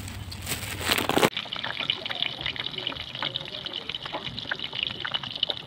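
Breaded chicken rolls shallow-frying in hot oil in a wok, sizzling steadily with many small crackles and pops. The sound changes about a second in, from a rougher, louder stretch with a low hum to an even, lighter sizzle.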